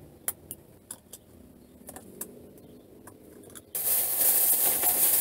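A few faint clicks and taps, then about three and a half seconds in a loud rustling and crinkling of a plastic shopping bag being rummaged through.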